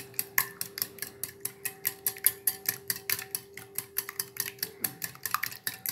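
Wire whisk beating an egg-and-milk mixture in a cut-glass bowl, the wires ticking against the glass in a quick steady rhythm of about six or seven strokes a second.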